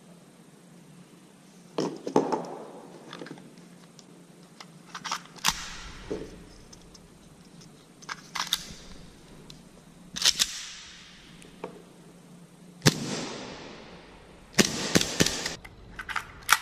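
A CO2 airsoft pistol and its gas magazines being handled and loaded: a series of sharp metallic clicks and clacks, several of them close together near the end.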